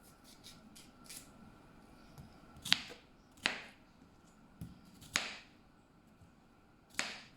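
Kitchen knife cutting a pear into small pieces on a cutting board: four sharp knocks a second or two apart, with faint light ticks before them.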